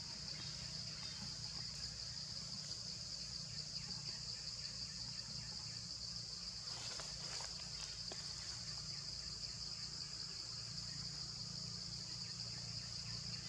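Steady, high-pitched, unbroken drone of insects in a tropical forest, over a low steady rumble.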